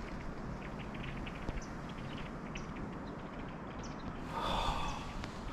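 A large flock of red-winged blackbirds calling together from one tree: a steady scatter of many short, high chips, with a louder burst of sound about four and a half seconds in.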